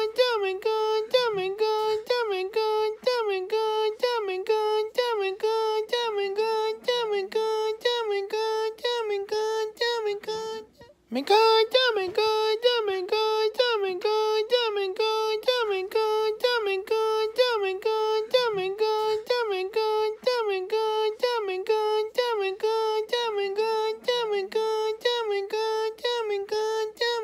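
A high singing voice repeats one short phrase over and over, about two notes a second, each on nearly the same pitch with a small dip. It breaks off briefly about eleven seconds in.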